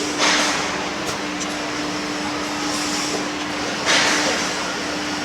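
Steady mechanical running noise with a constant hum from a remote-control model machine's added sound-effect unit. It is broken twice by short, loud hisses, just after the start and about four seconds in.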